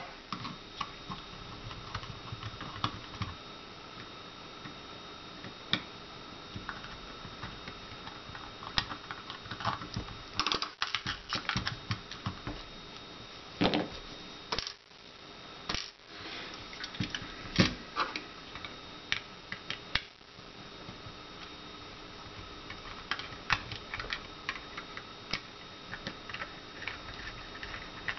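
Scattered small clicks and taps of hands prying the plastic grip panels off a Beretta 21A Bobcat pistol's metal frame and setting parts down on the work mat, in irregular runs like light typing.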